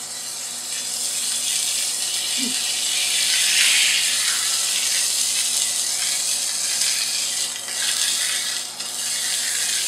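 A prime rib roast sizzling in a hot, oiled cast-iron frying pan as it is seared; the sizzle swells about three to four seconds in, when the meat is pressed down onto a fresh side. The gas stove's exhaust fan hums steadily underneath.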